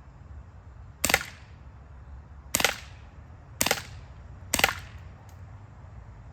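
CO2-powered non-blowback airsoft pistol, an ASG CZ75 SP-01 Shadow, fired four times at an uneven pace, each a sharp gas pop with no slide cycling. A faint click follows the last shot, over a steady low rumble.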